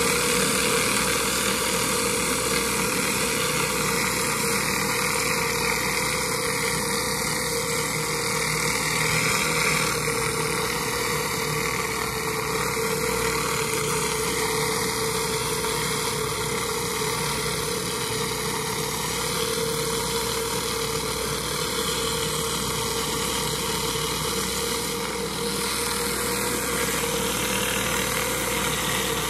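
Pressure washer surface cleaner running over paver stone: a steady spray hiss from its spinning jets with a constant whine, over the pressure washer's engine running.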